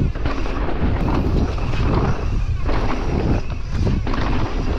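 Mountain bike ridden fast down a dirt trail: a heavy wind rumble on the action-camera microphone, with tyre noise and many short rattles and knocks from the bike over the ground.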